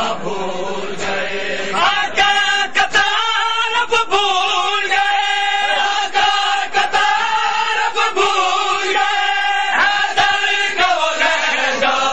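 Men's voices chanting a noha together in long, held notes, with repeated sharp slaps of hands beating chests in matam.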